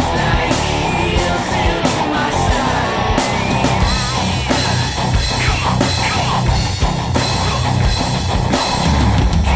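Loud rock music with a steady drum beat and electric guitar.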